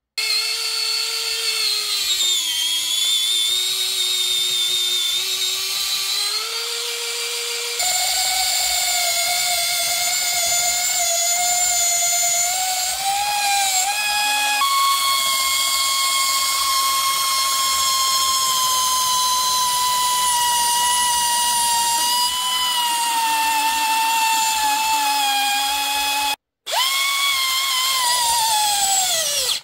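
Tenwin electric pencil sharpener's small DC motor and cutter running while sharpening a pencil, overvolted from a bench power supply. Its steady whine steps higher in pitch each time the voltage is raised, up to 20 V, wavers while it cuts, and falls away steeply near the end as the motor spins down.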